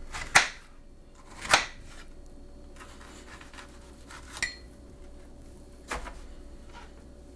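Kitchen clatter as red pears are handled for the smoothie: two sharp knocks about a second apart, then two fainter knocks.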